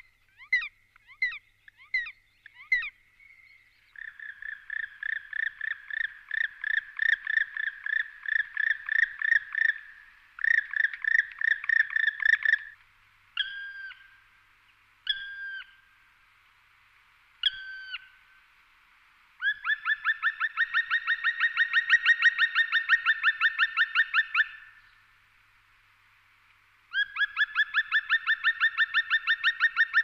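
Male black woodpecker calling: a few separate short notes at the start, then long fast series of ringing notes, broken about halfway by three single drawn-out calls that fall in pitch at the end, before two more long series.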